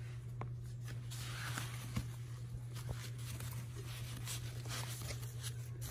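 Faint rustling and a few light taps from foam packing pieces and plastic wrap being handled in a styrofoam box, over a steady low hum.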